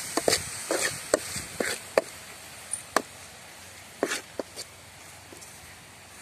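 Steel ladle stirring sautéing onions and tomatoes in an aluminium kadai, giving irregular metal-on-metal clinks and scrapes. The clinks get sparser after about four and a half seconds.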